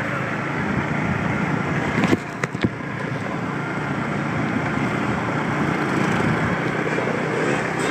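Riding a moped: a steady rush of wind and road noise over a hand-held phone's microphone, with the small engine running underneath. A few brief knocks come about two seconds in.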